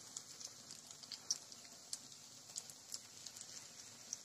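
Faint sizzle of semolina-and-potato fingers deep-frying in hot oil in a metal kadai: a steady hiss with scattered small pops and crackles.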